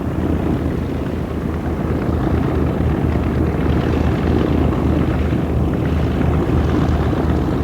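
Propeller aircraft's piston engines droning steadily in flight, a low, even throb.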